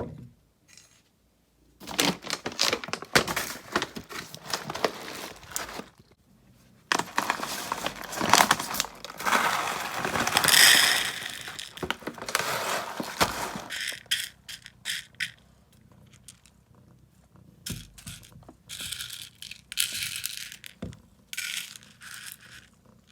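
Cat food being served into food dishes: long stretches of rattling and scraping in the first half, then shorter scattered rattles.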